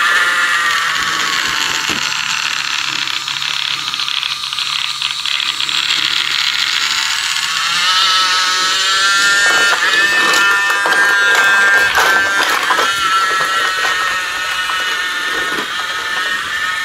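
Battery-powered toy train locomotive's small motor and gearbox whirring as it pulls freight cars along wooden track, its whine shifting in pitch, with a run of clicks and knocks from about ten to thirteen seconds in.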